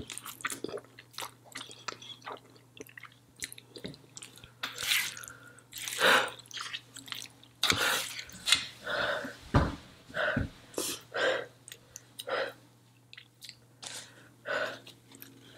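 A person slurping and chewing a mouthful of spicy instant noodles close to the microphone, in irregular wet bursts and clicks.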